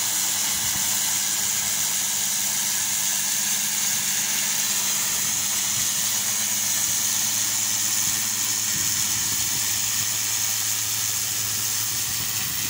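Pressure washer running: a steady hiss of the high-pressure water jet striking a stone wall, over the constant hum of the machine's motor and pump.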